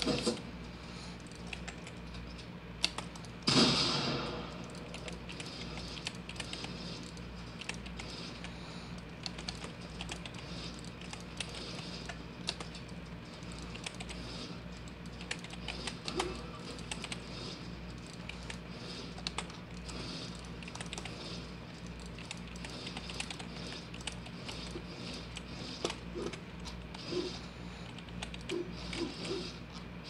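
Typing on a Chonchow tenkeyless membrane gaming keyboard, a fast run of soft key clicks. It is membrane keys, not the Cherry MX Blue switches the keyboard was sold with. There is a louder clatter of keys about four seconds in.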